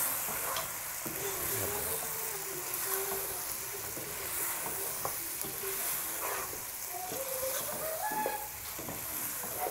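Chicken pieces sizzling in hot oil in a nonstick pot as they are stirred and tossed with a wooden spatula to mix in dry spices. A steady sizzle runs under occasional scrapes and knocks of the spatula against the pot.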